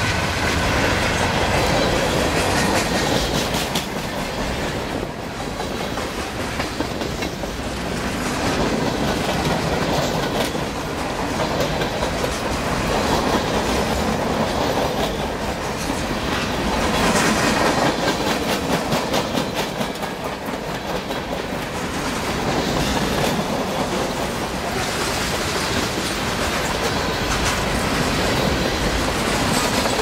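CN mixed freight train of boxcars and tank cars rolling past close by: a continuous rolling noise of steel wheels on rail, with the rapid clickety-clack of wheels crossing rail joints.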